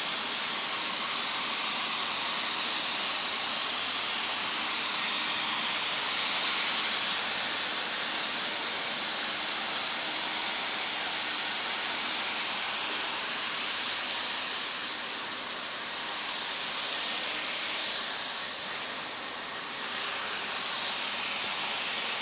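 Hot-air welding gun blowing a steady hiss as it melts a welding rod into the seam of synthetic sports flooring. The hiss dips and swells for a few seconds about three-quarters of the way through.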